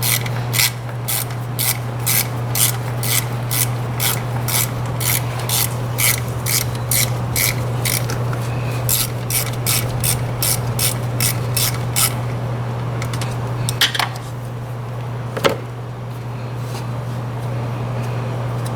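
Quarter-inch ratchet with a T30 Torx bit clicking in steady back-strokes, about two clicks a second, as it backs out a thermostat-housing Torx screw. The clicking stops about twelve seconds in, with a couple of single clicks after. A steady low hum runs underneath.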